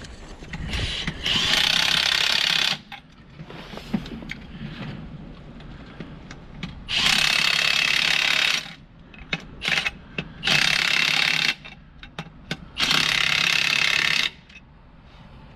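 Impact wrench running down the nuts on a 6-inch water-main repair clamp, in four bursts of one to two seconds each, with a few short clicks between them.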